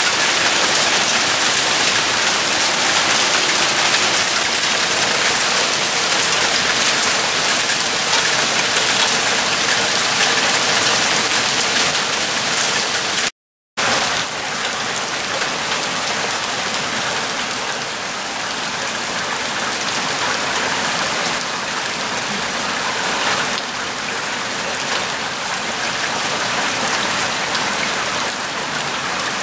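Hail and rain falling steadily on the ground and vegetation, a dense patter of countless small impacts. It drops out completely for a moment about halfway and goes on slightly softer after the break.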